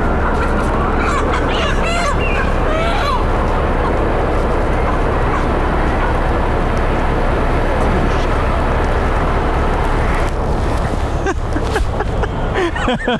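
Loose chickens squawking as they are chased and grabbed, in short calls about a second in and again near the end, over steady street noise.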